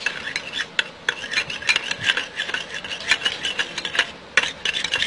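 A spoon stirring yogurt and lemon juice together in a small bowl, scraping against the bowl in quick, irregular strokes, with a brief pause about four seconds in.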